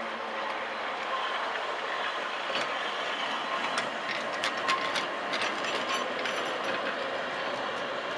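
Historic tramcar rolling past close by, its steel wheels running on the rails with a steady rumble and a run of sharp clicks and clacks between about two and six seconds in.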